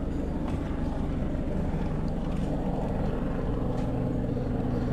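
Steady low rumble of a vehicle engine running, with a low hum.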